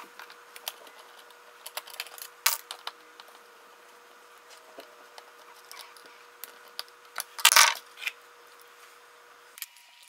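Small clicks, ticks and scrapes of a screwdriver working the screws of a wall outlet and its plastic cover plate as the outlet is unscrewed and pulled from its electrical box. A sharper click comes about two and a half seconds in, and a longer scraping rustle about seven and a half seconds in.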